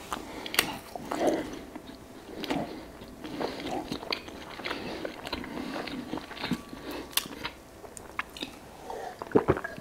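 Close-miked chewing of whole-wheat bread with honey: soft, irregular mouth sounds with scattered sharp clicks.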